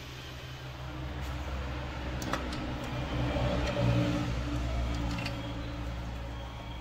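An engine running steadily, getting a little louder about halfway through, with a couple of sharp metallic clicks.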